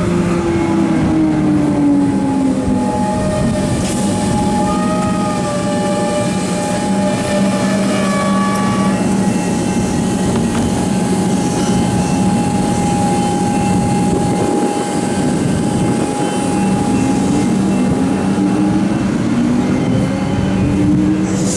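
Electric suburban train pulling out of a station: a falling motor whine in the first seconds, then the traction motors' whine climbing in pitch as it gathers speed, over a steady hum and the rumble of wheels on rails.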